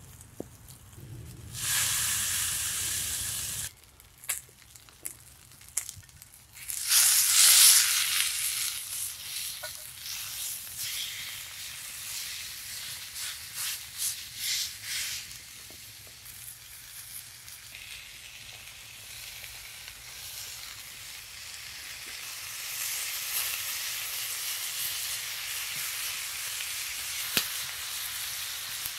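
Ribeye steak sizzling in a cast iron skillet over a wood fire. The sizzle cuts in and out in the first few seconds, swells loudest about seven seconds in, then settles into a steady sizzle with a few sharp pops.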